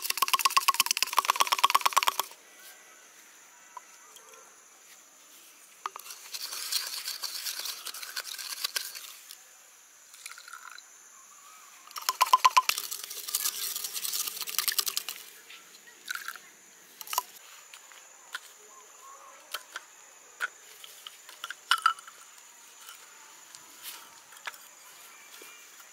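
Bamboo pestle pounding charcoal inside a bamboo tube in quick, even strokes, in three bursts of two to three seconds each, followed by scattered single taps.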